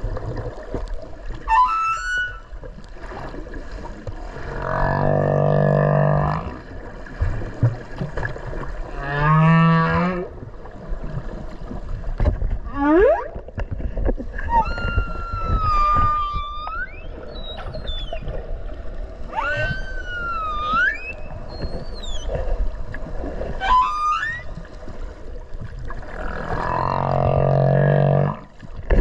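Humpback whale song heard underwater: a sequence of varied calls. Long, low moans come about four seconds in and again near the end, with a wavering rising call around ten seconds and higher whistling glides and squeals in between.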